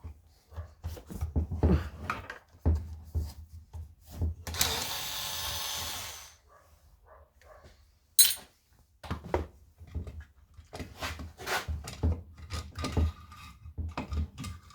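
Tools and small metal parts knocking and clicking during the teardown of a 45cc chainsaw, with a brief whirring rush of noise lasting about a second and a half, a little over four seconds in.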